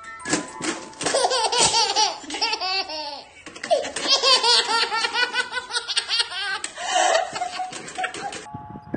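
A baby boy laughing in repeated belly laughs, with a woman laughing loudly along with him. The laughter starts about a second in and stops shortly before the end.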